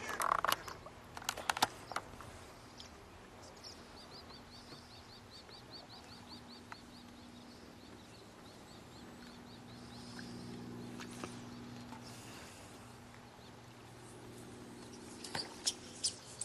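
A hooked fish splashing and thrashing at the water's surface, with a cluster of sharp splashes in the first two seconds and more near the end as it is drawn to the landing net. Between them, a small bird trills a quick run of high chirps, about five a second, for roughly four seconds.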